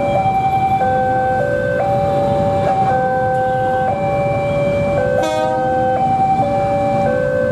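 Electronic emergency-vehicle siren cycling through a few steady tones, each held for about half a second to a second, over a low engine rumble. A short buzzy blip cuts in about five seconds in.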